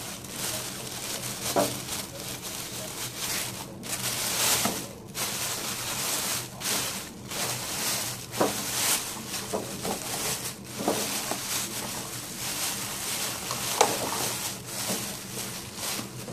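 Thin plastic carrier bag rustling and crinkling as hands pull it open, with sharper crackles now and then, the loudest about fourteen seconds in. A steady low hum runs underneath.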